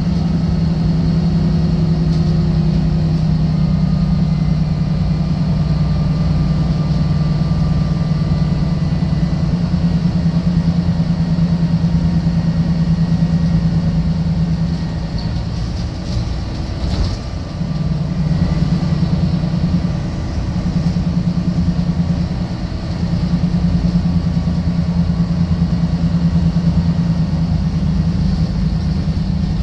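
Volvo B12BLEA articulated bus's rear-mounted diesel engine and Voith DIWA automatic drivetrain, heard from inside the rear cabin while under way. The engine runs steadily, easing off a few times in the second half, with a single short knock about halfway through.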